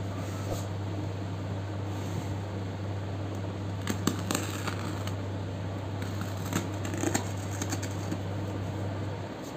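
Clear plastic stretch wrap on a cardboard parcel crinkling and crackling as hands handle and pick at it, with the sharpest crackles about four seconds in and again around seven seconds, over a steady low hum.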